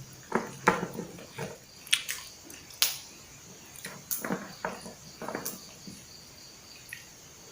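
Eating sounds: irregular chewing, smacking and small sharp clicks.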